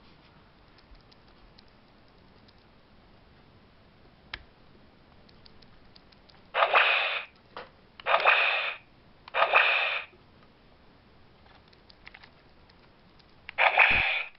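Hasbro Indiana Jones toy whip playing its electronic whip-crack sound effect through its small speaker, three times about a second and a half apart, after a few seconds of faint handling clicks. Another loud burst from the toy starts near the end.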